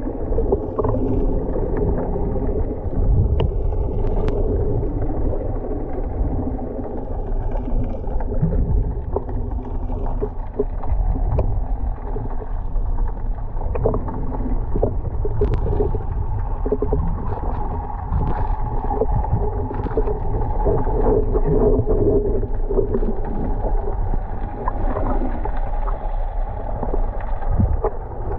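Underwater sound heard through a waterproof camera housing: a muffled, steady rumble with a low hum and scattered small clicks.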